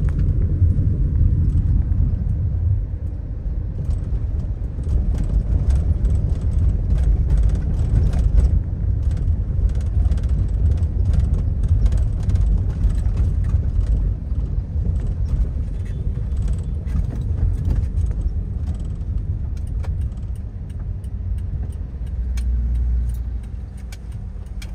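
A car driving along a town street: a steady low rumble of engine and road noise, with small clicks and rattles scattered through it.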